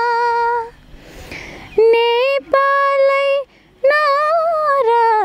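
A woman singing a Nepali patriotic song unaccompanied, holding long steady notes, with a breath between phrases about a second in.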